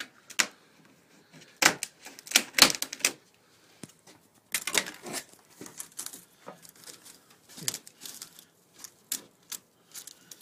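Hand cutters nipping and prying at fasteners in an old wood-canvas canoe's rotted cedar stem and sheeting: irregular sharp clicks, snaps and splintering crackles, coming in clusters with short pauses between.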